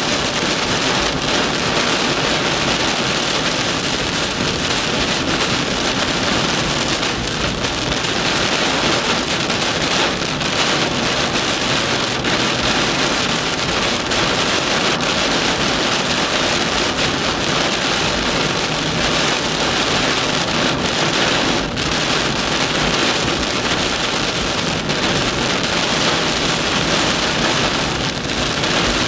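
Heavy thunderstorm downpour pouring onto a car, heard from inside the cabin as a loud, steady, dense rush of rain.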